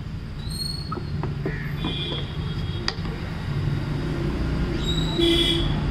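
Fingers stirring a runny herbal paste of neem oil, turmeric and sweet flag powder in a plastic cup, with small wet clicks, over a steady low rumble. A few short high chirps come about half a second, two seconds and five seconds in.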